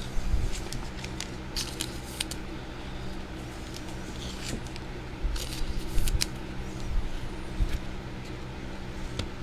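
Chrome trading cards being handled and slid through by hand, with scattered light clicks and snaps in small clusters over a steady low hum.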